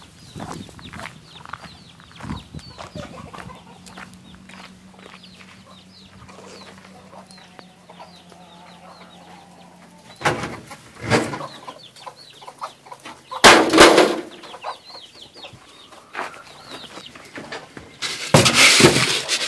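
Chickens clucking, with many short calls, and a few loud knocks about ten and fourteen seconds in. Near the end, a plastic cup digs into a bin of dry feed grain with a loud rustle.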